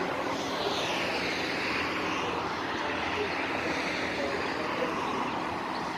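Steady rushing noise of passing motor traffic, with a hiss that sweeps down in pitch about a second in as a vehicle goes by.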